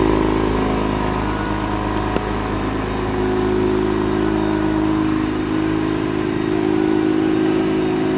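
Second-generation Acura NSX's twin-turbo V6 idling steadily, with a single small click about two seconds in.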